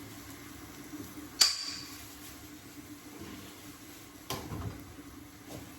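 Kitchen utensils knocking against cookware while food is being stirred: a sharp, ringing clink about a second and a half in, and a duller knock with some scraping a few seconds later, over a steady low hum.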